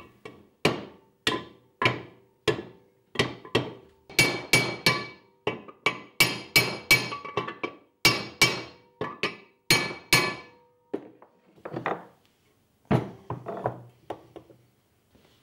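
Repeated hammer blows on a metal tube, driving the Loctite-coated bearing retainer into a 1978 Series 3 Land Rover's aluminium gearbox case. There are about two ringing metallic strikes a second, growing sparser and softer after about ten seconds as the retainer seats.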